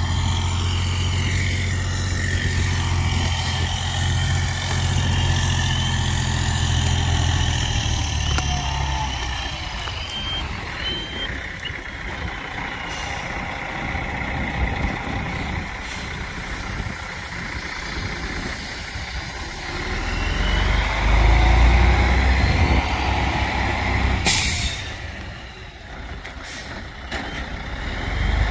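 Delivery truck's engine running as it manoeuvres, louder at the start and again in the last third, with a short sharp hiss of air, like an air brake, near the end.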